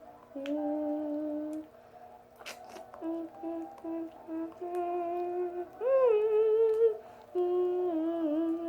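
A girl humming a wordless tune, with held notes and a few short ones, rising to a louder note about six seconds in. A brief clicking rattle about two and a half seconds in.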